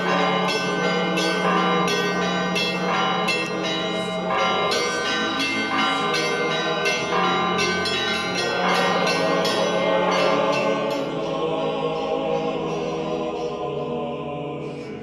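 Church bells ringing in a quick, uneven peal of many strikes over a steady low tone. The peal thins out and fades in the last few seconds.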